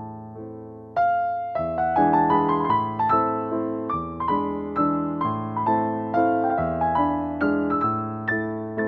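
Background piano music: a gentle melody of struck notes over held chords, with a louder phrase starting about a second in.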